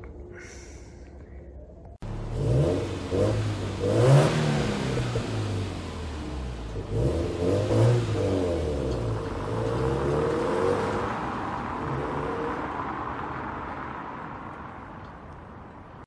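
Subaru WRX STI (VAB) turbocharged EJ20 flat-four engine revving up and down several times as the car pulls away, starting about two seconds in and fading toward the end as it drives off.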